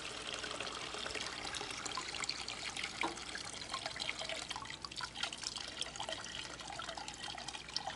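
Old gasoline pouring in a steady stream from a scooter's metal fuel tank into a metal bowl, splashing and trickling into the fuel already pooled there, with many small splashes. The tank is being drained of stale fuel.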